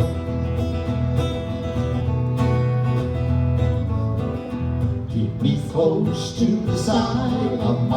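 A live country-gospel band plays an instrumental break on acoustic guitar with a steady bass line between verses of a hymn. Voices start singing again in the last couple of seconds.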